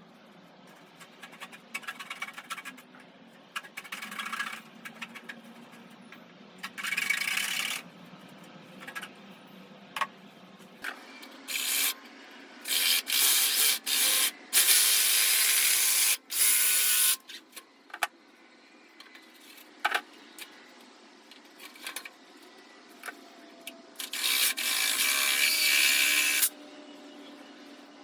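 Cardboard being cut in half: a blade rasping through it in strokes of a second or two, with small knocks and clicks between strokes.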